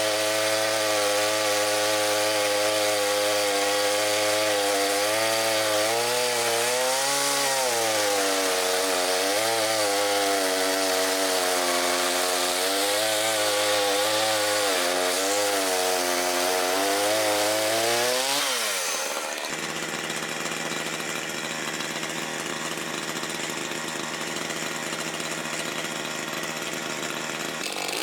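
Makita DCS5121 50 cc two-stroke chainsaw running at high revs, its pitch sagging and recovering again and again as under load in a cut. About 18 seconds in, the revs fall quickly and the saw settles into a quieter, steady idle.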